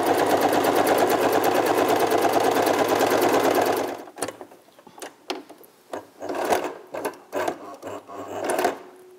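Domestic electric sewing machine stitching a seam through layered cotton fabric at a fast, steady pace, stopping about four seconds in. After that it runs only in a few short spurts, with sharp clicks in between.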